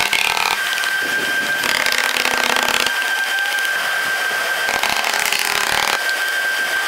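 Steady mechanical noise with a constant high whine, and a few louder rushing swells about a second long.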